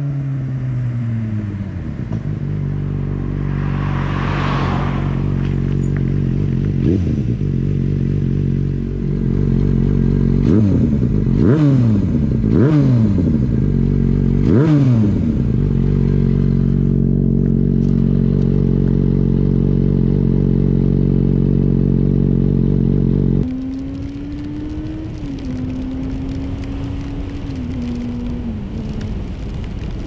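Yamaha FZ6 Fazer S2's 600 cc inline-four engine running through a Scorpion oval slip-on exhaust. Its note falls away in the first two seconds, then it idles steadily with four quick throttle blips about halfway through. A sudden change brings a higher, steadier engine note that steps down in pitch near the end.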